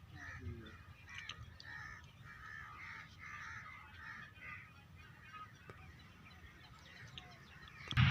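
Crows cawing over and over in the background, over a faint steady low rumble. A much louder noise breaks in right at the end.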